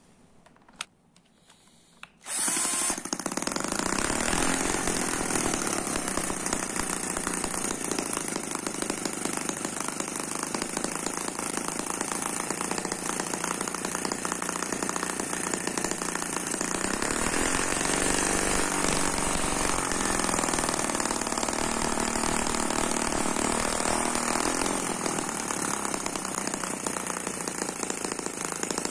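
M12C twin-cylinder four-stroke model gasoline engine starting up about two seconds in after a faint click, then running steadily and loudly. The exhaust noise overloads the camera microphone.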